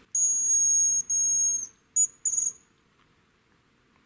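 Hazel grouse decoy whistle blown to imitate the bird's call. It gives two long, very high thin whistles, the second dipping at its end, then two short notes, the last falling away.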